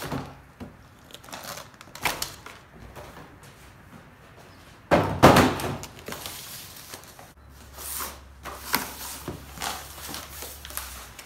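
Cardboard box packaging being handled: flaps and a cardboard insert rustling, scraping and knocking, with a louder scraping rustle about five seconds in.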